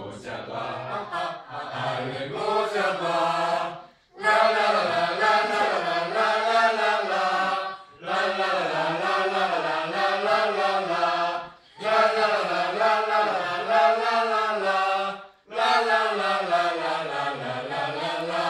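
A group of young voices singing together in unison, unaccompanied, in four long phrases with a short breath between each.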